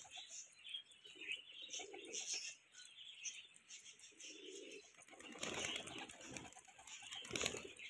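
A flock of fancy pigeons, fantails among them, cooing now and then, with flutters of wings twice in the second half. Faint high chirping runs throughout.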